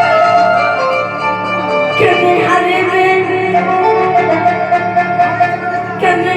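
Arabic song music with held string-like melody lines over a steady low beat; a new phrase comes in about two seconds in and again near the end.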